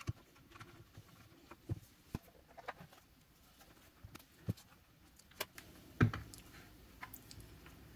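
Faint, scattered clicks and taps of a small sheet-metal power-supply case and its screws being handled and put back together, with one sharper knock about six seconds in.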